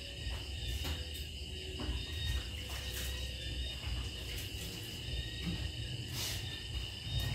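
Night insects chirring steadily at a high, even pitch, over a low rumble and a few faint clicks.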